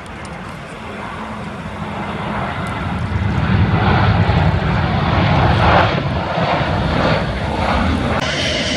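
Jet airliner passing close on landing. Its engine noise builds steadily for about three seconds, peaks around the middle and stays loud, over the low rumble of strong wind on the microphone.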